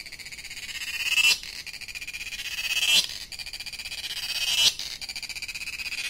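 Cicada singing: a high-pitched, rapidly pulsing buzz that swells over about a second and a half to a sharp peak, drops back and builds again, three times.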